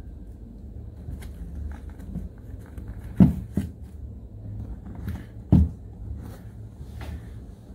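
A high-top sneaker being laced by hand on a tabletop: small rustles and clicks of the lace being drawn through, with two dull thumps, about three seconds in and again about five and a half seconds in, as the shoe is knocked against the table. A low steady hum runs underneath.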